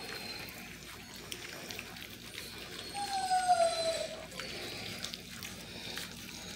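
Basset hound puppies lapping and slurping mushy puppy food from a shared pan, with many small wet smacking clicks. About three seconds in, one puppy gives a short falling whine, the loudest sound.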